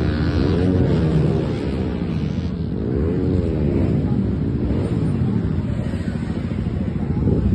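Motorcycle engines running with a low rumble, one revved up and back down about three times so the pitch rises and falls in arches.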